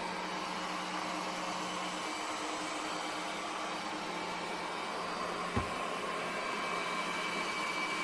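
DYNOVA JXV100 robot vacuum running, its suction fan and brushes giving a steady whir. One short knock comes a little past halfway.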